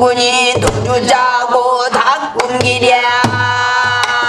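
A woman singing pansori, holding one long note through the second half, with a few sharp strokes on a buk barrel drum marking the rhythm.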